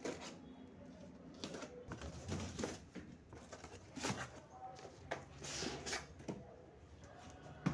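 A cardboard shipping box and the plastic supplement tubs packed in it being handled, heard as irregular rustles, scrapes and light knocks.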